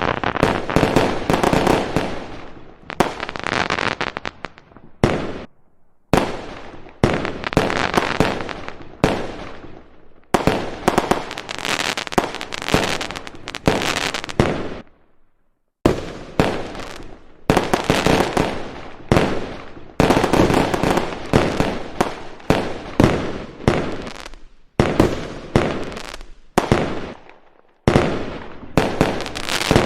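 Fireworks going off: a rapid series of sharp bangs, each trailing off in crackling, in clusters broken by a few brief pauses where the sound stops abruptly.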